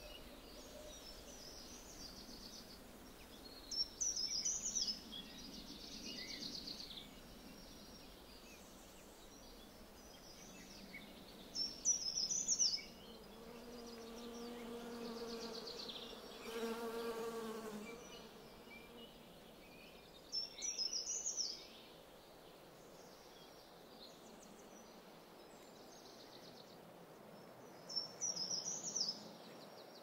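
Songbirds singing, a short high song phrase coming back about every eight seconds with softer chirps between. A bee buzzes for a few seconds in the middle with a steady droning hum.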